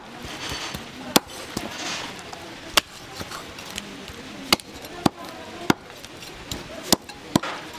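Cleaver chopping chicken on a cutting board: about eight sharp, separate strokes at an uneven pace, roughly one a second.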